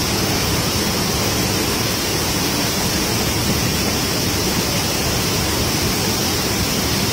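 Five Falls waterfall in heavy flow, several wide cascades pouring onto rock: a loud, steady rush of falling water.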